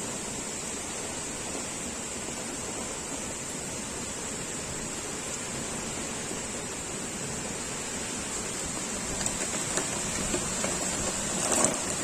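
Heavy rain pouring down in a steady rush. Near the end it turns uneven, with louder spatters and knocks.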